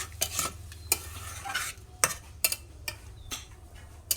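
A metal spatula stirring chicken pieces frying in spiced oil, knocking and scraping against the pot in irregular clicks, with sizzling that dies down partway through.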